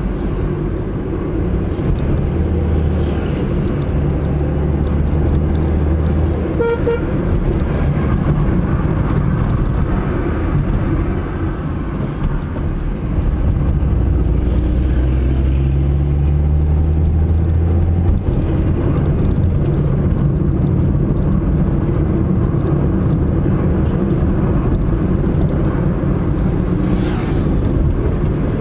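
Car driving through city traffic: steady engine and road rumble, with the engine note rising as it speeds up about halfway through. A short horn beep sounds about a quarter of the way in.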